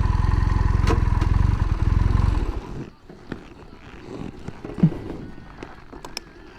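Motorcycle engine idling with a rapid, even pulse, then switched off, cutting out suddenly a little under three seconds in. Faint clicks and handling noises follow.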